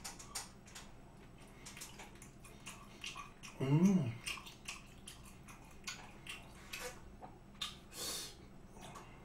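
Close-miked wet chewing and lip-smacking of sauce-dipped slices of raw beef, a string of small moist clicks and smacks. A short hummed vocal sound, rising and falling in pitch, comes about four seconds in and is the loudest moment.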